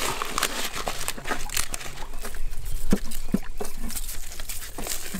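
Irregular crinkling and rustling with scattered small clicks, and a couple of louder knocks about three seconds in: hands packing the biryani mixture into fresh bamboo tubes and sealing them.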